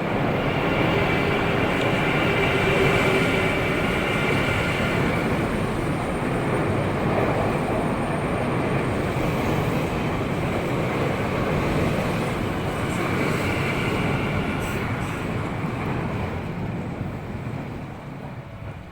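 Tokyu electric commuter train running past at close range: a steady rumble of wheels on rail with a high whine in it early on and again later, fading away over the last few seconds.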